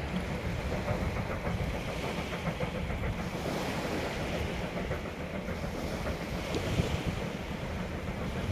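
Distant steam train running past as a steady rumble, with wind buffeting the microphone.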